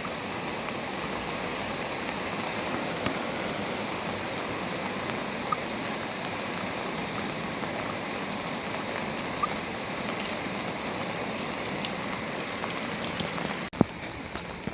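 Steady rain falling and pattering on surfaces, with a few sharper single drop hits. Near the end there is a sharp click, and the rain sound drops abruptly quieter.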